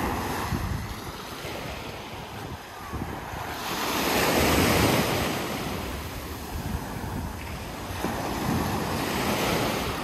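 Sea surf: small waves breaking and washing up the shore, swelling to its loudest about four to five seconds in and again more gently near the end, with wind rumbling on the microphone.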